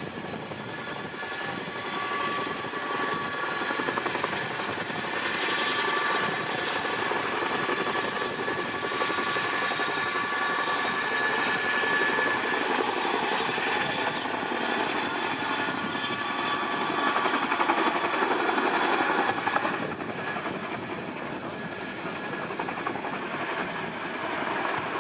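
Boeing CH-47F Chinook tandem-rotor helicopter in flight: a rapid beat from its twin rotors under a steady high whine from its twin turbine engines. It grows louder a few seconds in and eases off near the end.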